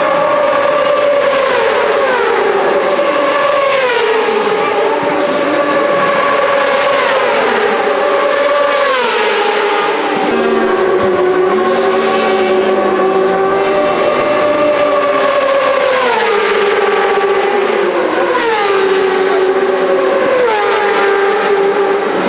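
Racing motorcycles passing one after another at speed, a string of high engine notes that each hold steady and then drop sharply in pitch as the bike goes by.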